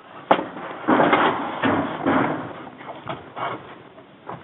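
A sharp knock, then bursts of scraping and rustling right against the camera's microphone as it rubs on clothing and gear, with a few lighter knocks near the end.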